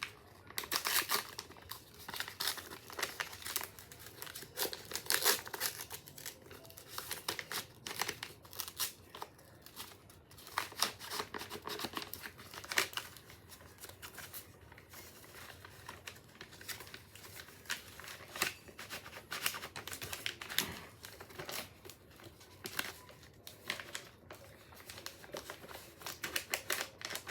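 Popsicle wrapper being crinkled and torn open by hand, with irregular crackling and rustling throughout.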